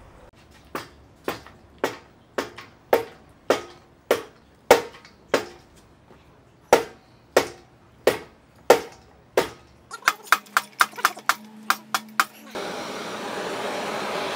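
Hammer blows on a steel punch, spaced about every half second, knocking apart the tight swivel (steering) bracket of a Yamaha 25 outboard so its bushings can be cleaned, followed by a run of quicker, lighter taps. About 12.5 seconds in, a gas blowtorch flame starts hissing steadily as it heats the bracket.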